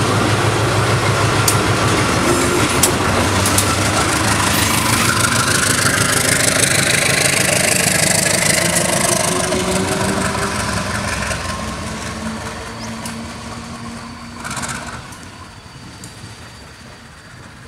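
A KAI diesel-electric locomotive running light during shunting. Its engine is loud as it rolls past, then fades steadily as it moves off down the track.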